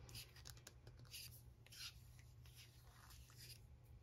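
Near silence with faint, light scraping and rubbing of small nail-stamping tools: a few soft strokes about a second in, near two seconds and a little past three seconds.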